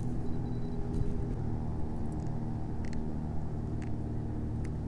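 A vehicle engine running steadily, heard muffled, with a few faint clicks.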